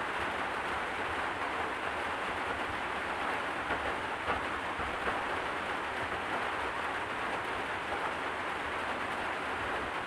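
Steady rain falling, an even hiss with a few faint ticks near the middle.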